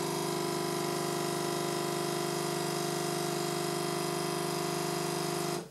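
Cremesso Compact One capsule machine's pump running with a steady hum as it brews a 110 ml caffè crema, cutting off suddenly near the end when the machine stops automatically at the set volume.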